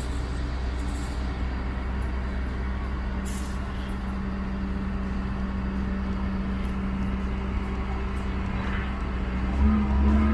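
Diesel engine of a Doosan DX140W wheeled excavator running steadily while its arm works the demolition rubble. Near the end the engine note rises and gets louder for about a second as it revs up.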